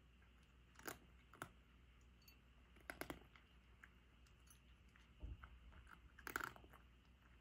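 A cat eating dry kibble from a ceramic bowl: faint crunches come in short separate bursts, about five of them, the loudest near the end.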